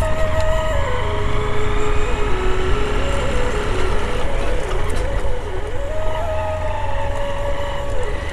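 Motorcycle engine running over a loud low rumble of wind and road noise while riding down a slippery dirt hill track, its note rising and falling.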